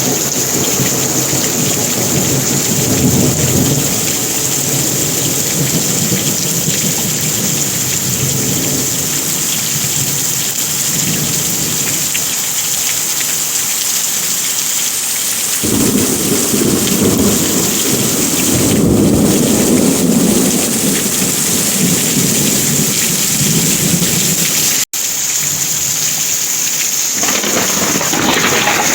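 Heavy rain pouring steadily, with a low thunder rumble swelling and fading underneath. The sound cuts out for a split second about 25 seconds in.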